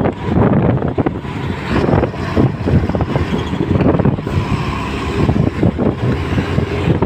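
A road vehicle running, with heavy wind buffeting the microphone, giving a loud, uneven rumble.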